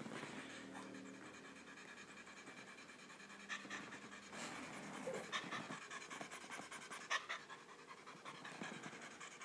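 A cat panting, breathing fast with its mouth open, winded from energetic play.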